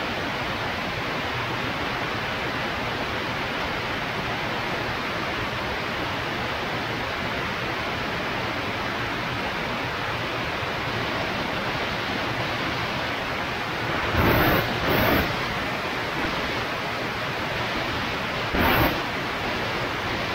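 Steady rush of wind noise from a Zenith CH 650 B light aircraft in flight, with no clear engine note above it. Three louder wind buffets hit the microphone: two close together about two-thirds of the way through and one more near the end.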